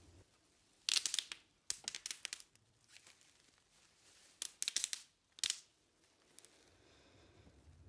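Short bursts of crinkling, rustling noise in four clusters over a few seconds, each a quick scrape or crackle rather than a pitched sound.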